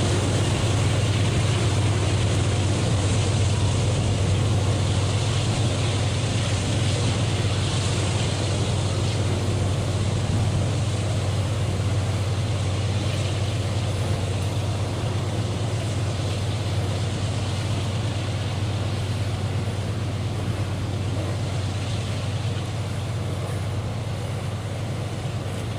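Iron-ore freight train running past: a steady low drone of locomotive engines under a continuous rolling rumble of the train, slowly growing fainter.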